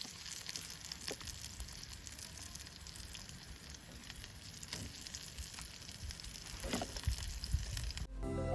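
Food frying in oil in a pan: a steady sizzle with scattered small crackles, cut off near the end.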